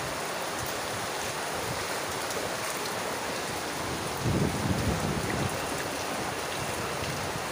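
Heavy rain pouring steadily, with muddy floodwater running down the street. A brief low rumble about four seconds in.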